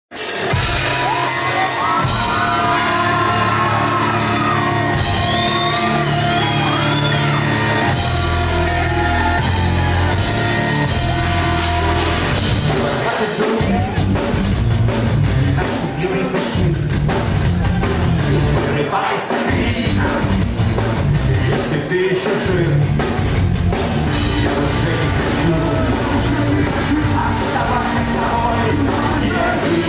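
Live rock band playing the instrumental intro of a song in a concert hall, with drums and guitars, and shouts from the crowd over the opening.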